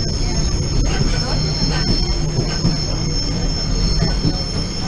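Steady low rumble of a moving passenger train heard from inside the coach, with a steady high whine over it and a few faint clicks.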